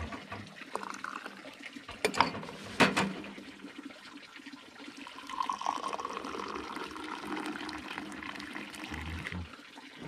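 Tea poured in a high stream from a silver Moroccan teapot into a glass, starting about five seconds in and running steadily for several seconds. Before it, a couple of sharp clinks.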